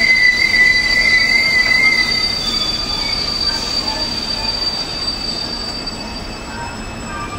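Passenger coaches rolling slowly away as the train departs, their wheels squealing against the rails in a high steady tone that stops about two seconds in, with fainter, higher squeals lingering a little longer. Under it a rumble of wheels on track fades as the train draws off.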